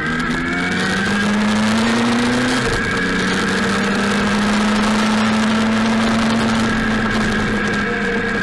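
Motorcycle engine accelerating from a roundabout, its pitch rising, with a gear change about three seconds in, then pulling at a steady, slowly rising pitch. A constant hiss of wind and tyres on a wet road runs underneath.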